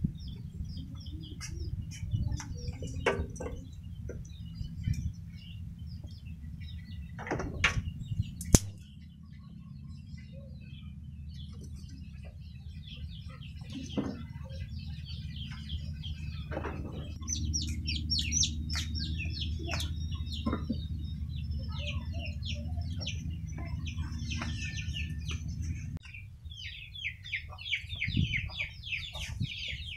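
Yard birds chirping and chickens clucking over a steady low hum, which cuts off near the end. A couple of sharp knocks come about a quarter of the way in.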